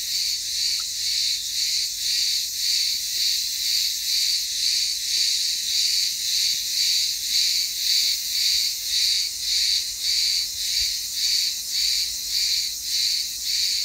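Chorus of cicadas singing in the tree overhead: a loud, shrill, steady buzz that pulses about twice a second, many insects at once.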